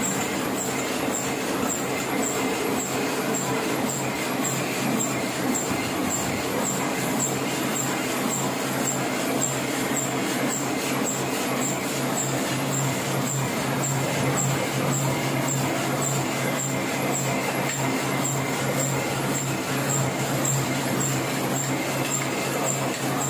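Heidelberg offset printing press running steadily, its inking rollers turning, with a low hum and a regular high ticking of the mechanism a few times a second.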